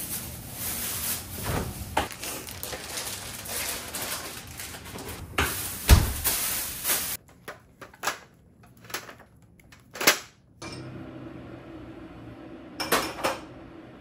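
Kitchen handling sounds: a steady hiss with knocks for about the first seven seconds, then separate clicks and knocks of dishes and utensils, with a heavy thump about six seconds in and a sharp knock about ten seconds in.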